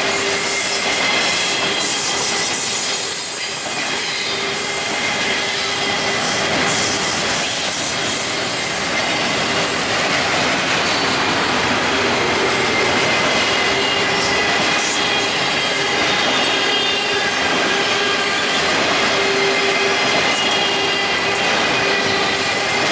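Union Pacific double-stack intermodal freight train passing at speed: a steady, loud rumble and rattle of well-car wheels on the rail, with wheel clicks and a thin, steady squeal running through it.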